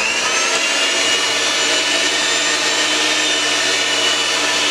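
Electric hand mixer running steadily, its twin beaters creaming butter and sugar in a glass bowl. Its whine rises slightly in pitch at the start as the motor comes up to speed.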